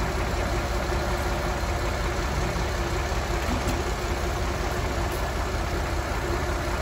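A heavy truck's diesel engine idling steadily.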